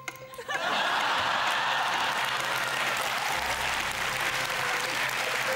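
Studio audience applauding and laughing, breaking out about half a second in and carrying on steadily.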